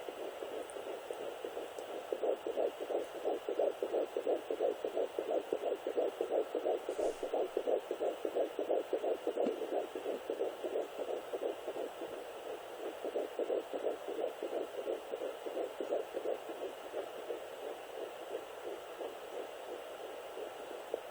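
Fetal heartbeat at 10 weeks 2 days' gestation picked up by a Sonoline B handheld fetal doppler and played through its speaker: a fast, even pulsing that is strongest in the first half, fades briefly, then grows weaker toward the end.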